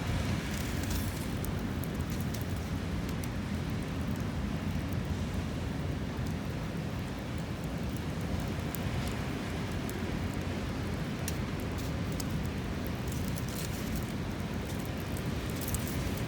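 Steady low rushing noise of sea and wind, with faint scattered crackles from a wood fire.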